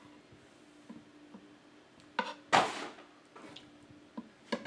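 Metal spoon and fork clicking and scraping on a wooden plate while cutting a vegetable pancake, with a brief louder noise about halfway through, over a faint steady hum.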